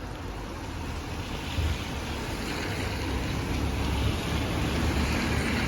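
Wind buffeting the microphone: a steady low rumble with a rushing hiss above it.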